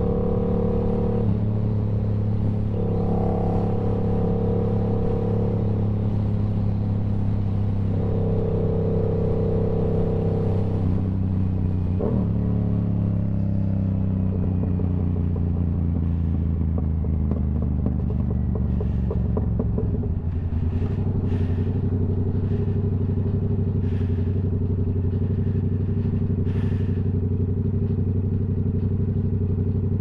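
Yamaha R7's parallel-twin engine running steadily at highway cruise. About halfway through, its pitch falls over several seconds as the bike slows, then holds steady again at a lower speed.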